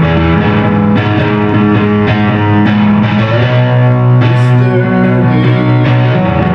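Electric guitar playing an instrumental passage of a rock song, with a low bass note held underneath that shifts about halfway through.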